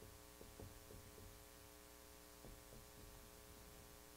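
Near silence: a steady low electrical hum, with faint short strokes of a marker writing on a whiteboard.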